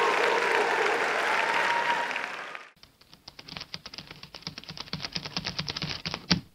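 Audience applauding, fading and cutting off a little under three seconds in. Then a quick run of sharp clicks, a logo sound effect, comes thicker and ends in one loud click near the end.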